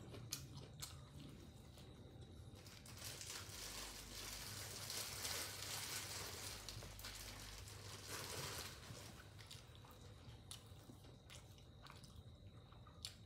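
A person chewing crunchy food with the mouth close to the microphone: a crunching that swells for several seconds in the middle, with a few light clicks around it.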